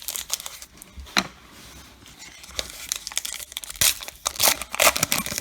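A baseball card pack wrapper being torn open and crinkled: a string of sharp crackles and rustles, loudest about four to five seconds in.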